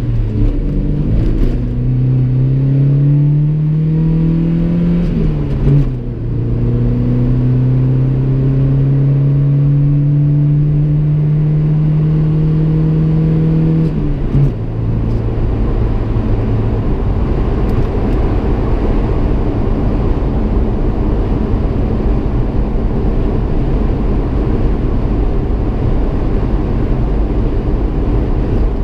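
1986 Toyota pickup's four-cylinder engine heard from inside the cab, accelerating hard with a rising drone and shifting up through the manual gearbox twice, about five seconds in and again about fourteen seconds in. It then settles to a steady highway cruise under even road noise.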